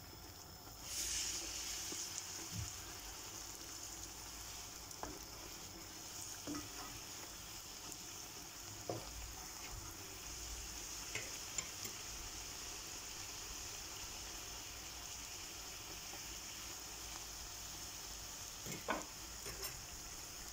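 Cheese-filled börek pastries frying in hot vegetable oil in a pan: a steady high sizzle that swells about a second in, with a few light clicks of forks against the pan as the pastries are turned.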